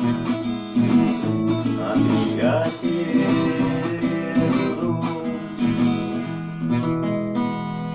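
Music: acoustic guitar strumming chords in the song's instrumental ending. Near the end the strumming stops and a last chord is left ringing.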